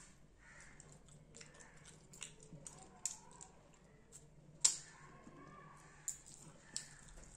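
Close-up eating sounds of fish curry and rice eaten by hand: wet mouth sounds and chewing, with a scatter of sharp clicks and smacks, the loudest about two-thirds of the way through.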